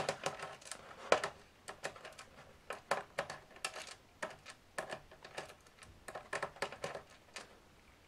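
Precision screwdriver undoing a screw in a laptop's plastic bottom case: a run of small, irregular clicks and ticks.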